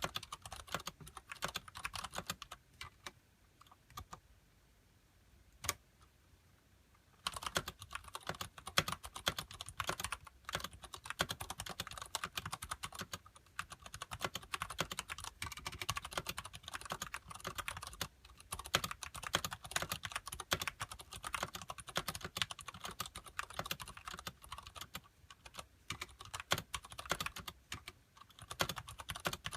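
Typing on a Ducky Shine Mini mechanical keyboard with Cherry MX Brown switches and thick PBT keycaps: fast, dense key clicks and clacks. The typing pauses for a few seconds early on, with only a couple of single keystrokes, then runs on continuously.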